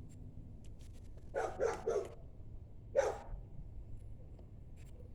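A dog barking: a quick run of three barks and then a single bark about a second later. The owner takes it for barking at a squirrel.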